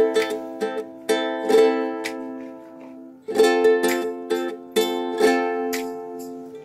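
Background music of plucked string chords, struck every half second to a second and each ringing out before the next.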